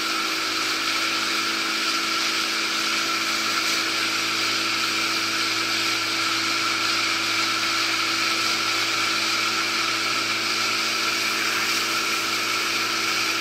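Boat motor running at a steady speed, a constant droning whine heard from aboard the moving boat.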